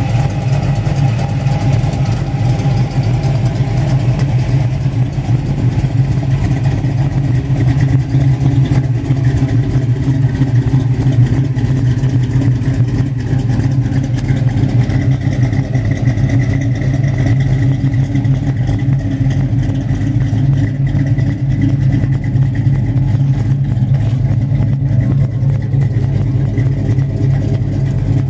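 1951 Chevrolet pickup truck's engine idling steadily, a low, even exhaust note.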